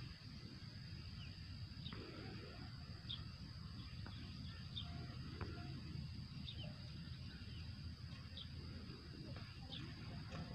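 Outdoor ambience: short high bird chirps every second or so over a steady high insect drone and a low rumble.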